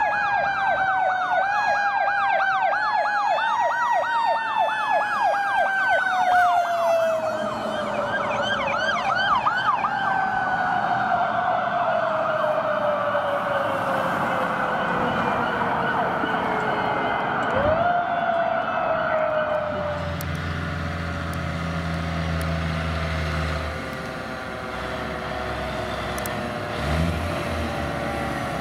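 Fire truck sirens: a fast electronic yelp over a siren wail for the first ten seconds or so. Then the wail alone rises sharply twice and falls slowly in long sweeps, as a mechanical siren does when wound up and left to coast down. A low steady blast lasts about three seconds around two-thirds of the way in, with a short one near the end.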